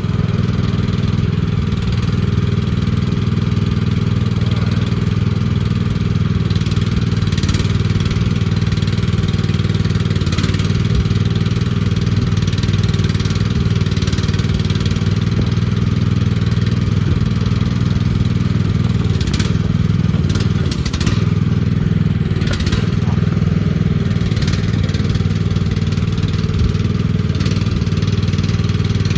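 The gas engine of an AGT QK16R mini excavator running steadily, with a few brief knocks about two-thirds of the way through.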